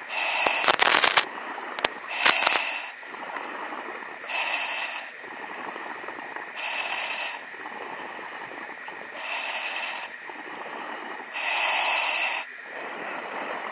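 A diver's breathing heard over the diving radio: rhythmic hissing breaths about every two seconds through the breathing gear, with a short run of sharp crackling clicks about a second in.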